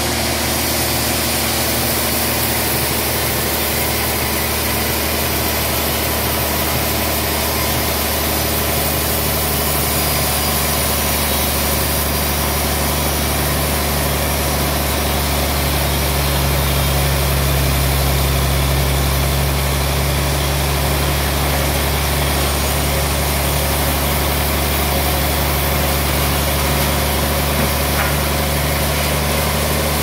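Large band sawmill running with a steady low machine hum while its blade cuts a slab from a big log. The hum swells a little about halfway through.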